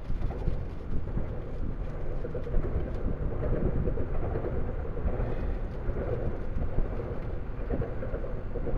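Wind buffeting the microphone: a steady rushing noise with no clear tone.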